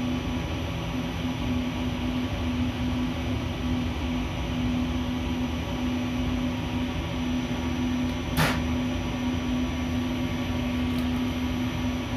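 A steady mechanical hum with a constant low tone, like a running fan or air-conditioning unit. A single sharp click about eight seconds in.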